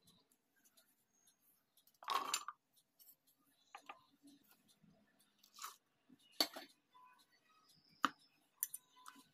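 Coconut pieces and green chillies dropped into a stainless-steel jar. A short clatter about two seconds in is the loudest, followed by several single clinks and taps.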